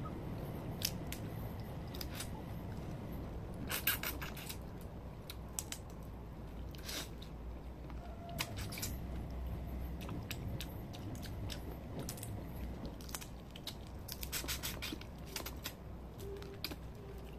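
Cooked crab shells being cracked and pulled apart by hand and chewed, a scatter of short sharp cracks and clicks that cluster about four seconds in and again near the end, over a low steady hum.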